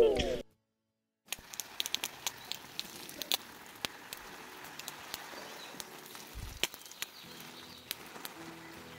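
Water from a garden hose spraying onto leafy shrubs and soil: a faint, even patter with many scattered ticks of drops on leaves. Guitar music cuts off just at the start, and faint music comes back in near the end.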